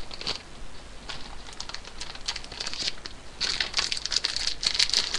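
Crinkling and rustling of a toy's packaging wrapper being handled and worked at with scissors, busier and louder over the last couple of seconds.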